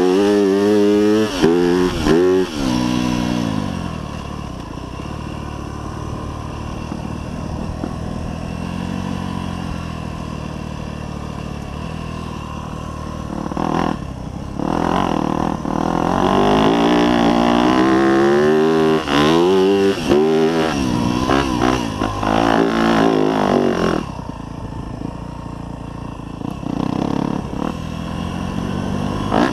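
2024 Yamaha YZ250F's single-cylinder four-stroke engine revving hard through the gears, with the pitch climbing and dropping over and over at the start and again through the middle. In between and near the end it eases off to a lower, steadier note.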